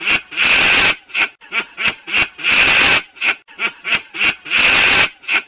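A man laughing in breathy, wheezing bursts, a quick run of short ones with three longer drawn-out ones.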